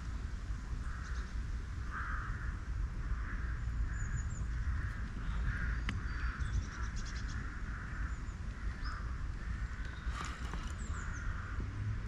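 Birds calling over and over with harsh, caw-like notes, about two a second, joined by a few short, high, falling chirps from a smaller bird, over a steady low rumble.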